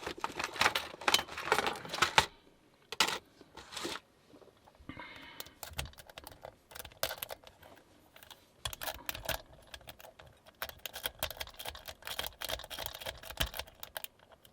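Rake pick worked in and out of a wafer lock: rapid light metallic clicking and scraping as the rake rattles over the wafers, in two busy spells with a mostly quiet pause between them.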